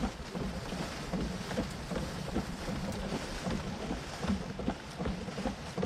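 Wind buffeting the microphone: a steady rushing noise with a low rumble that rises and falls unevenly.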